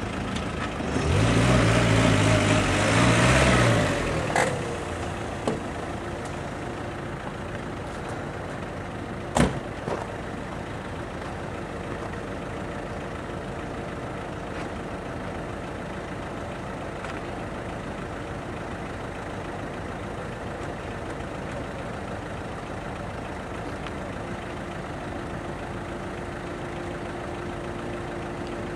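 Truck engine of a truck-mounted folding aerial work platform running steadily, with a louder stretch in the first few seconds and a single sharp knock about nine seconds in.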